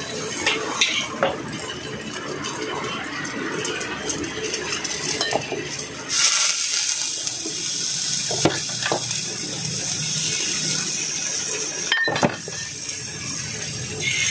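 Metal spatula clanking and scraping against a steel wok while stir-frying, with a frying sizzle underneath. About six seconds in, a louder, brighter hiss starts.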